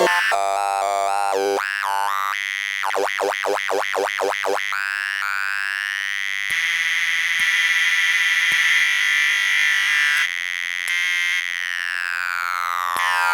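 Arturia MicroFreak synthesizer, a hybrid of digital oscillators and an analog filter, playing a bright, buzzy, alarm-like tone. About three seconds in its pitch warbles quickly, roughly five times a second. It then settles into a long held note that steps lower about ten seconds in and begins to sweep down near the end.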